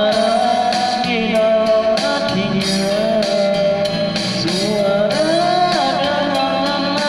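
Pop band music: a melody with long held, bending notes over a steady band accompaniment with drum hits.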